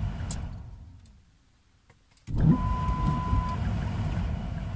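Car cabin road rumble while driving. It fades to near silence about a second in, then cuts back in suddenly about two seconds later, followed shortly by a steady electronic beep lasting about a second.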